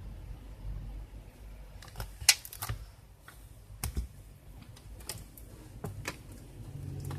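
A series of sharp, separate clicks and taps from handling the laptop's internal parts during disassembly, the loudest about two seconds in, over a low background hum.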